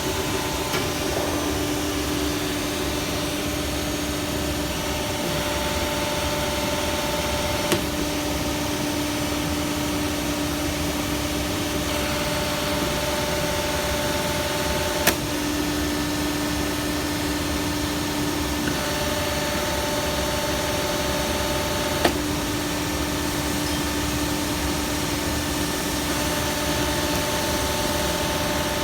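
Steady engine-like machine hum with a pitched tone that switches on and off every several seconds, and a sharp click about every seven seconds.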